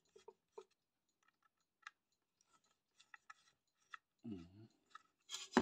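Screwdriver working a screw on the sheet-metal case of an old power supply to free the mains cable's strain-relief fixing: sparse faint clicks and scrapes. A short hum from the person about four seconds in, and a sharp knock at the very end.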